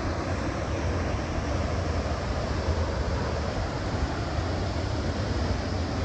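A tall waterfall, over 30 metres high, pouring steadily into its pool: a constant, loud rush of falling water with a deep rumble underneath.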